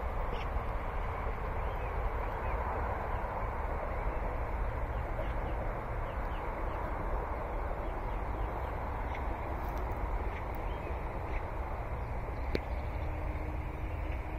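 Outdoor ambience: a steady rumbling hiss with scattered short bird calls over it, and a single sharp click about twelve and a half seconds in.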